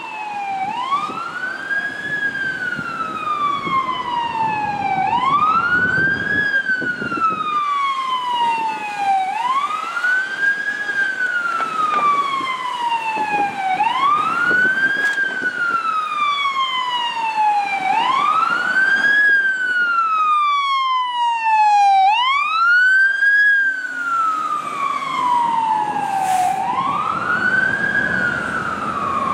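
Fire engine siren wailing, rising and falling in pitch about every four seconds. About two-thirds of the way through, a brief run of quicker, higher sweeps joins in. A low rumble of traffic runs underneath.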